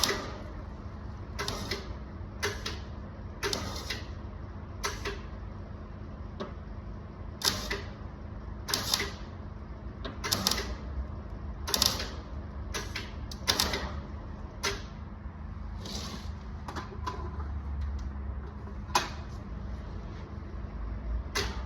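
Welder making a series of short tack welds on thin sheet metal: about fifteen brief crackling bursts at irregular intervals, each under half a second. The welder is on its lowest setting.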